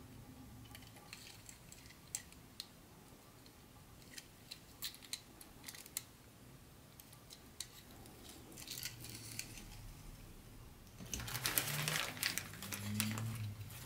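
Small objects being handled: irregular light clicks and taps, then a few seconds of denser rustling and clattering about eleven seconds in.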